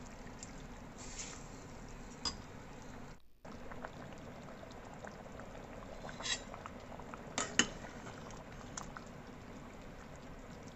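Rice boiling in mutton broth in a metal pot: a steady bubbling, with a few light clinks of a metal spoon against the pot, the loudest two close together about two thirds of the way in.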